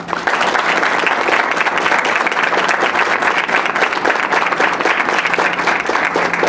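Audience applauding: many hands clapping in a dense, even patter that starts suddenly.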